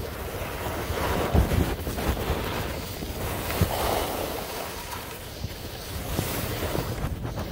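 Wind rushing and buffeting over a phone microphone while skiing downhill, with the steady hiss of skis sliding on snow and a few brief low thumps.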